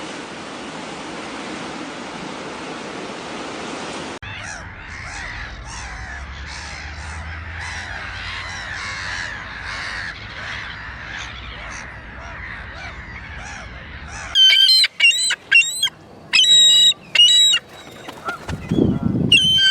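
Black-headed gulls calling. After a few seconds of steady hiss, a flock calls over one another, then from about two-thirds of the way in several loud, harsh single calls ring out close by.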